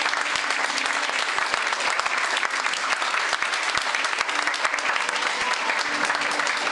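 A roomful of guests clapping: steady, sustained applause that keeps going without a break.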